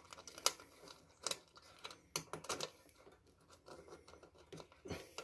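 Faint, irregular small clicks and scrapes of hands fitting little nuts onto the screws that hold a new bellows to a bee smoker.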